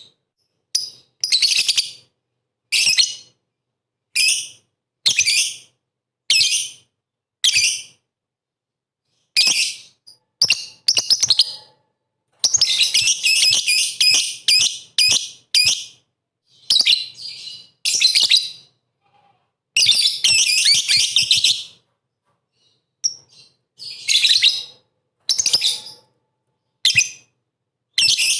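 Lovebird chattering in full song: rapid, high-pitched bursts of about a second each, separated by short gaps, with two longer runs of several seconds near the middle.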